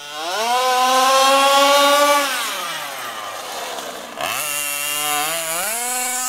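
Zenoah G320 two-stroke engine of a 1/5-scale HPI Baja SS RC car, through a Dominator tuned pipe, revving hard to a high scream and holding there. About two seconds in its pitch falls away, and after about four seconds it revs up again in two steps to full speed. It is running slightly lean on the high-speed needle.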